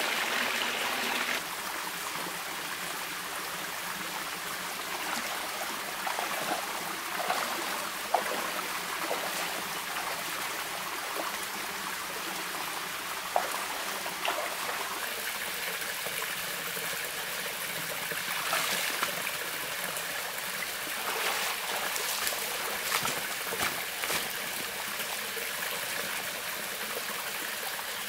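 Shallow rocky stream running and trickling steadily, a little louder for the first second or so. A few sharp knocks and brief splashes come through, typical of someone wading in the water.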